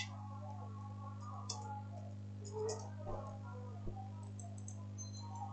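A few faint, scattered computer keyboard and mouse clicks over a steady low electrical hum.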